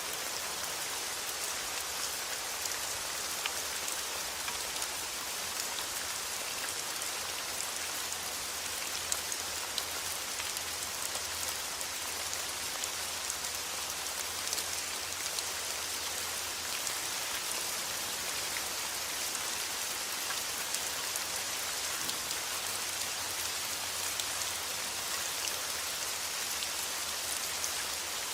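Steady rain falling, an even hiss with many scattered drop ticks, and a low steady rumble underneath.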